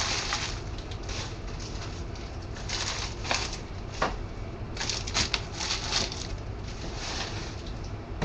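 Irregular crinkling and rustling of plastic or paper being handled close to the microphone, coming in uneven bursts.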